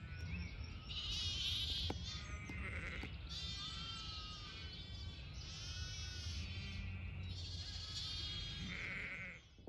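Sheep bleating, about six separate calls one after another, over a steady low rumble.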